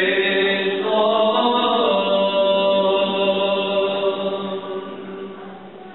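Greek Orthodox Byzantine chant: a sung melody over a steady held drone note (ison) that comes in about a second in, fading toward the end.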